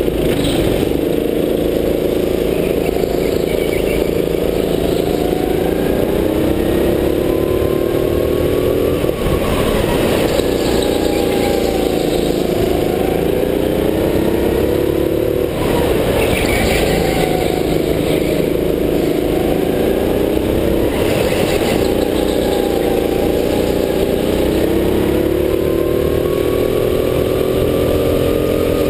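Go-kart motor heard from onboard at racing speed. Its note climbs steadily and then drops back, about four times, as the kart speeds up along the straights and slows into the corners, with bursts of rushing noise in between.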